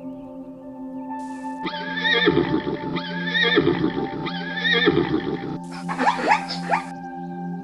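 Whinnying calls of a horse-like animal, three near-identical calls in a row, then a different short burst of calls with quick pitch sweeps, over steady background music.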